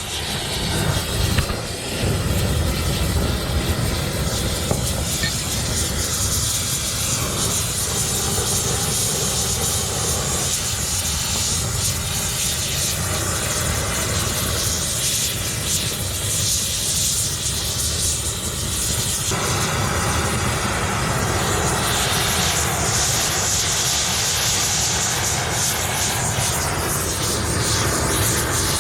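Oxy-acetylene heating torch flame burning steadily, heating the bosses around a seized loader attachment pin to free it; the sound's character shifts about two-thirds of the way through.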